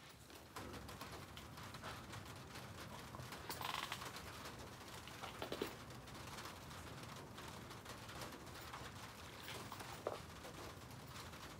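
Faint crackling and ticking of charcoal burning in a shichirin grill under skewered chicken gizzards, with a few slightly louder pops.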